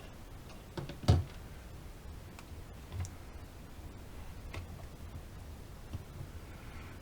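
Scattered small clicks and taps of parts and tools being handled on a disassembled Samsung A50 smartphone, with one sharper click about a second in.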